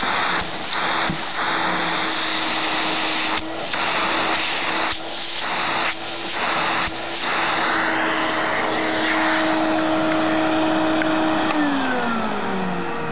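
Electrolux 2100 canister vacuum cleaner running: a steady rushing of air over a motor whine, with several brief dips in the sound. Near the end the motor pitch falls as it starts to wind down.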